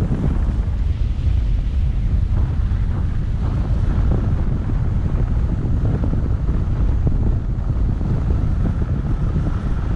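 Wind buffeting the microphone of a camera travelling down a ski run: a steady, heavy low rumble.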